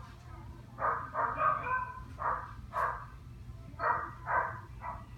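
Dogs barking repeatedly, about seven barks in uneven clusters, over a steady low hum.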